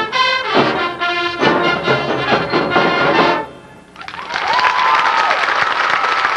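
Marching band's brass and drums playing the last bars of a piece, stopping together a little over three seconds in. After a brief pause the crowd in the stands breaks into applause.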